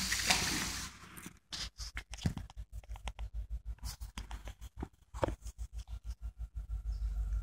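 Handling noise from a phone held in the hand: a scratchy rub across the microphone in the first second, then a string of short clicks and rubs as the phone is moved and repositioned.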